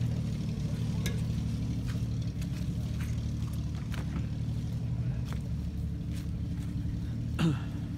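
Off-road car engine running steadily at a low, even speed, with a few faint ticks over it. A brief sound falling in pitch is the loudest moment, near the end.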